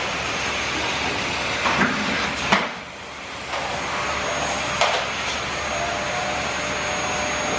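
Vacuum cleaner running with a steady whooshing hum; it knocks a few times and dips briefly about two and a half seconds in before running on.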